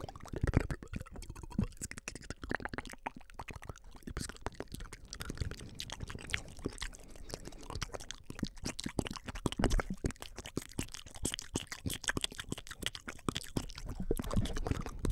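Close-up ASMR mouth sounds: quick, irregular wet clicks, smacks and crackles made into cupped hands, mixed with inaudible whispering.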